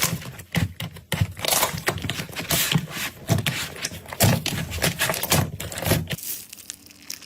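Slime being pressed and squeezed by hand, giving irregular crackling and popping that turns quieter about six seconds in.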